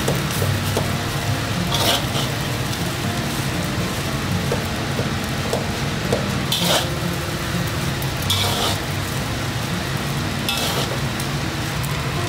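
Fried rice sizzling in a metal wok as a metal spatula stirs it, with four louder scrapes of the spatula against the wok.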